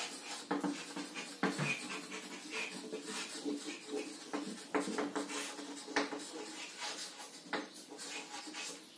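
Chalk tapping and scratching on a blackboard as words are written by hand: a run of short, irregular taps with brief scrapes between them.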